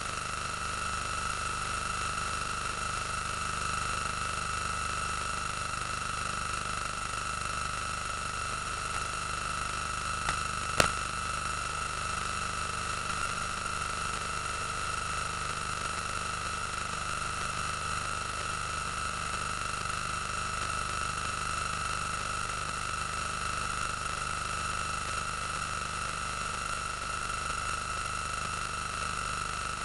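Steady hiss with a constant high whine from the transfer of a silent cine film, with no soundtrack, and a single sharp click about eleven seconds in.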